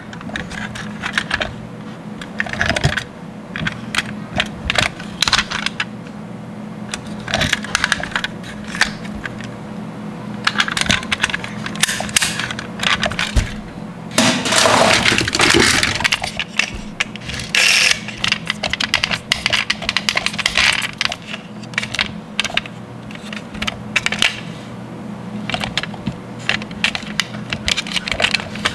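Die-cast metal toy cars clicking and clinking as they are handled, with a longer clatter about halfway through as a hand rummages through a crate full of them.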